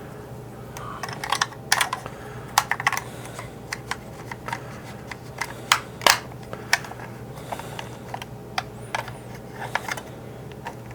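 Hard plastic parts of a 1988 G.I. Joe Rolling Thunder toy clicking and tapping against each other as they are handled and fitted together: a scattered run of sharp clicks over a low steady hum.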